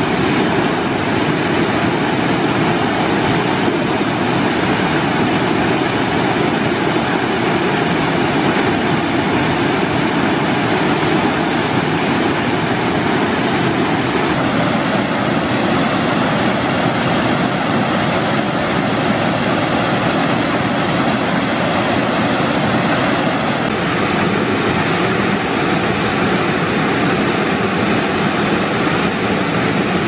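Mountain waterfall rushing steadily, a loud, even roar of falling water.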